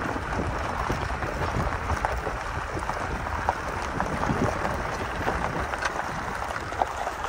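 Toyota off-roader driving on a rough gravel mountain track: a steady rumble of tyres on loose gravel and engine, with scattered small crackles and knocks.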